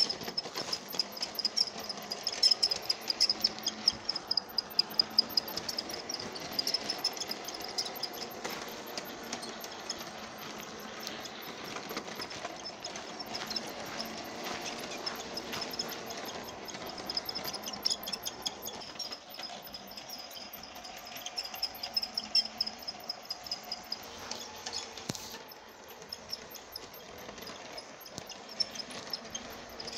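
Lionel G-scale Thomas the Tank Engine toy train running on its track: a steady high motor and gear whine with frequent clicking and clattering of the wheels over the rail joints and crossing.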